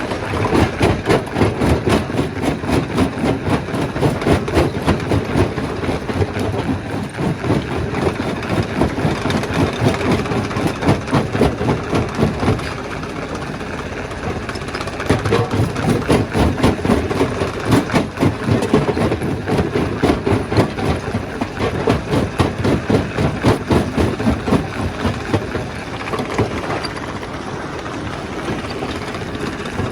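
Stone crusher machine running, with a dense, rapid knocking and rattling over a steady engine sound. The knocking swells and eases, going quieter for a couple of seconds about halfway through and again near the end.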